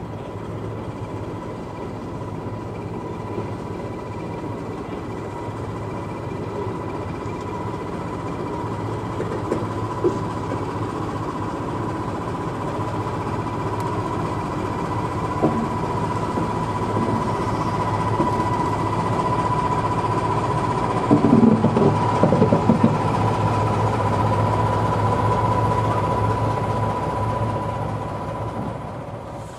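BR Class 14 diesel-hydraulic shunter's Paxman Ventura V6 diesel engine running as the locomotive passes, with a steady whine underneath. It grows louder to a peak about two-thirds through, where there is a brief cluster of sharp knocks, then fades near the end.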